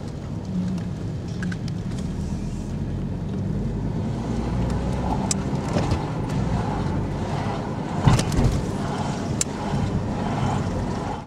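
Car engine and tyre noise heard from inside the cabin while driving slowly, a steady low rumble with a single thump about eight seconds in.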